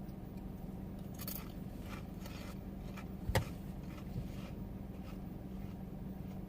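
Someone eating potato chips in a car cabin: a few faint crunches and rustles, with one sharp crunch a little past the middle, over a steady low hum.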